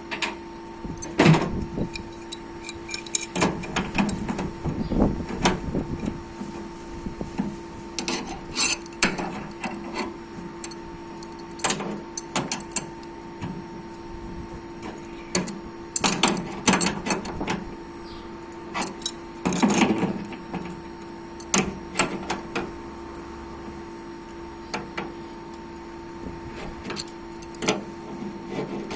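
Irregular clicks, taps and short scrapes of hand-tool work on copper refrigerant tubing, over a steady hum.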